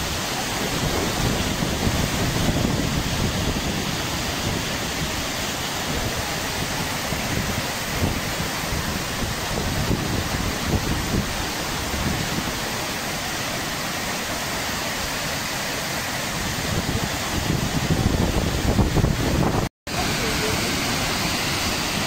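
Tortum Waterfall: the steady rush of a large waterfall pouring into its pool, with an uneven low rumble beneath. The sound cuts out for a moment near the end, then resumes.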